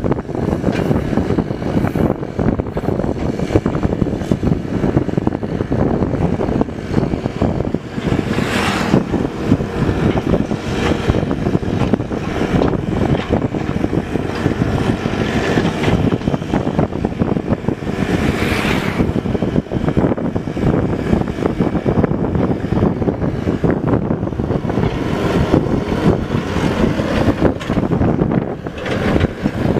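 Mini excavator's diesel engine running steadily under work, with two short hissing surges, about a third and two-thirds of the way through.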